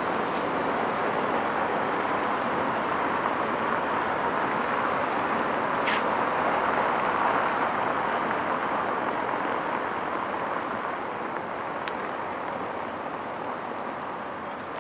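Steady rush of city traffic noise from passing cars, easing off slightly in the last few seconds. A brief high squeak, falling in pitch, about six seconds in.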